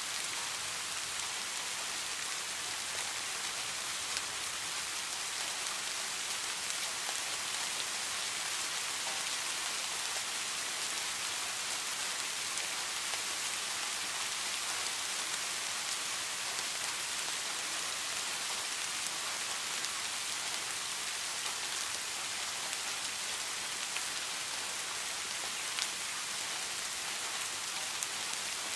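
Steady rain falling, an even, unbroken hiss with a few sharper drop ticks now and then.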